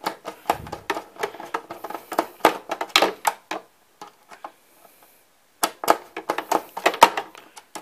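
Screwdriver working a screw out of the Macintosh IIci's chassis: a run of small quick clicks and ticks, a pause of about two seconds midway, then another run of clicks.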